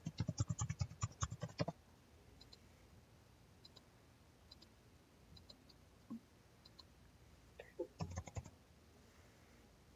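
Computer keyboard typing in a quick run of key clicks, then scattered faint mouse clicks, and another short burst of clicks about eight seconds in.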